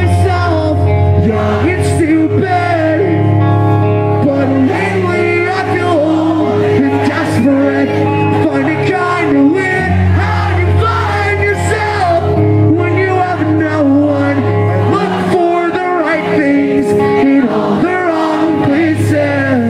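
Pop-punk band playing live: electric guitars, bass and drums with a male lead singer singing into the microphone.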